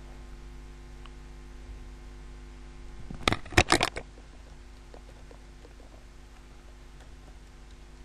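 A quick run of computer keyboard keystrokes, about half a dozen sharp clicks within a second, about three seconds in, with a few faint taps after. A steady low electrical hum runs underneath.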